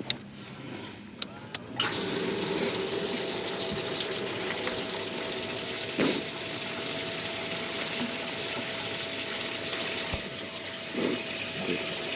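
Boat livewell pump switched on after a few clicks, pouring water steadily with a thin motor whine. Two short knocks come later.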